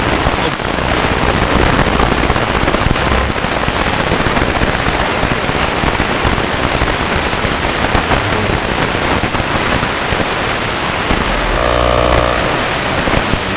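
AM radio static from a boombox tuned between stations: a loud, steady hiss with crackle. A short buzzing tone comes through briefly near the end.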